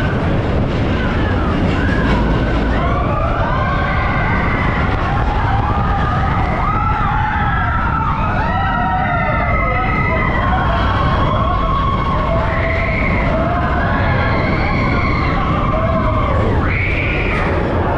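Riders on a Vekoma steel roller coaster screaming and whooping, many voices rising and falling over one another, over a steady low rumble of the moving train and rushing air.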